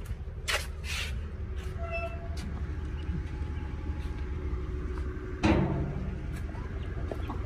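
Steady low rumble with light clicks and scuffs from a hand-held phone being carried while walking. About five and a half seconds in there is a short, louder sound.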